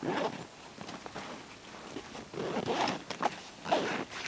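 Rucksack being packed and closed: fabric rustling and short zipper pulls in several separate bursts, the loudest just before the end.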